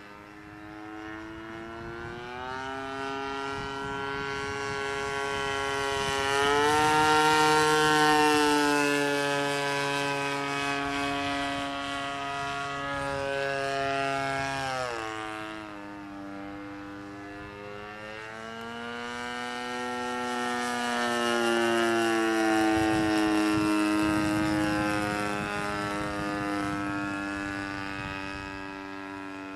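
JC Evo 28cc two-stroke gasoline engine running in a flying radio-controlled model airplane, its propeller note rising and falling in pitch as the plane manoeuvres. The sound swells twice, loudest about a quarter and about three quarters of the way through, with a clear drop in pitch near the middle.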